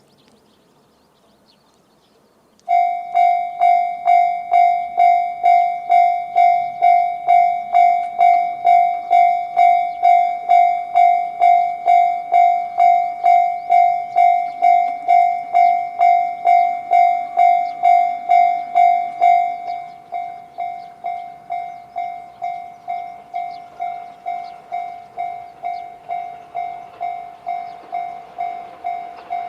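Japanese railway level crossing alarm, the JR standard electronic bell, starts up about three seconds in and dings steadily at about two strikes a second. About two-thirds of the way through it drops to a quieter level and keeps ringing, with a rising rush of noise building underneath near the end.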